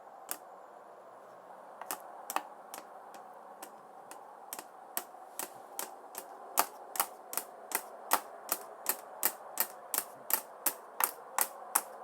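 Sharp clicking knocks, a few scattered ones at first, then settling into an even, quickening beat of about two and a half a second.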